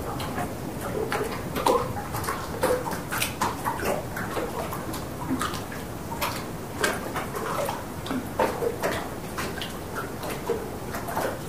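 Calm harbour water lapping gently against the hull of a moored fishing boat: irregular small splashes and clucks, a few a second.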